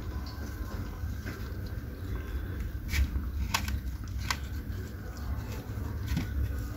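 Cats and kittens chewing raw chicken from a tray, with a few sharp clicks and ticks of teeth and food, the clearest three between about three and four and a half seconds in.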